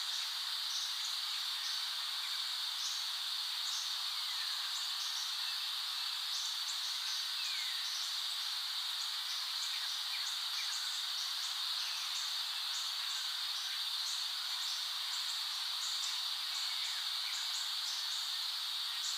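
Outdoor nature ambience: a steady high-pitched hiss with many short, higher ticks scattered over it.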